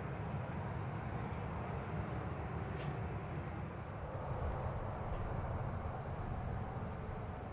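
Boeing 737-800's CFM56 jet engines running at low thrust as the airliner taxis on the runway: a steady rumble without rises or falls, with one brief faint click about three seconds in.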